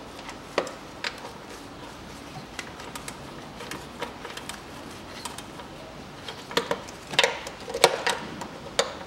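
Hands handling parts in a car's engine bay: scattered sharp clicks and knocks of plastic and metal, with a quick run of louder clatters about seven to eight and a half seconds in.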